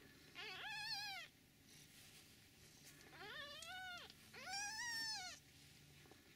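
Newborn kittens, one day old, mewing while they scramble over each other for teats as they nurse: three high, thin mews, each rising and falling in pitch with a slight waver, the last two close together.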